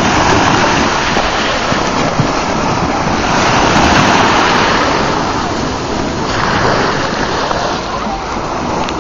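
Splash of a swimmer diving into the sea, followed by a steady rushing wash of surf and water noise.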